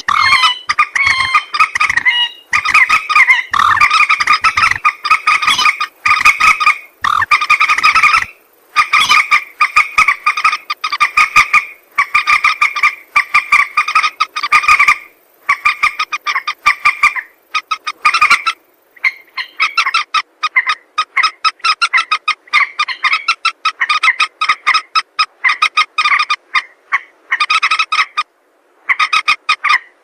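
Common moorhen calling: rapid chattering series of short clicking notes in runs of about a second, repeated over and over with short pauses between runs.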